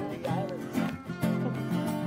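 Several acoustic guitars strumming and picking with no voice over them, and one short sliding note about a third of a second in.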